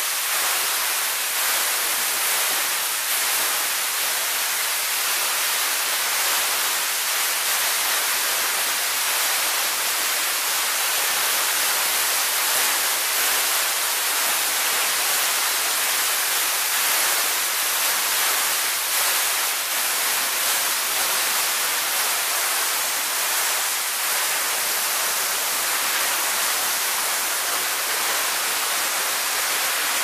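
Waterfall pouring into a rock pool: a steady, even rushing hiss, strong in the highs with little low rumble.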